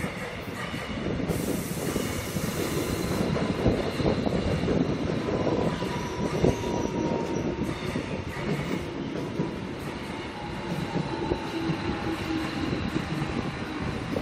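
Electric commuter trains of Seoul's Line 1 running past close by: a steady rumble of wheels on rails with thin, high wheel-squeal tones. A burst of high hiss is heard from about one to three seconds in.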